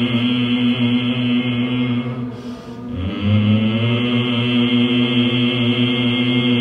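The qigong 'Nnng' sound chanted as a long, low hum held on one pitch. It breaks off for a breath a little over two seconds in, then starts again.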